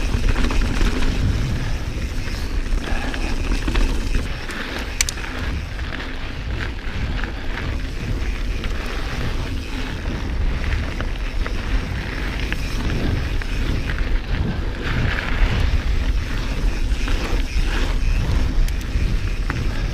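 A 2019 Santa Cruz Bronson full-suspension mountain bike ridden down a dirt and rock trail: tyres rolling and crunching over the ground, chain and frame rattling with many small knocks, under a heavy low rumble of wind buffeting the microphone.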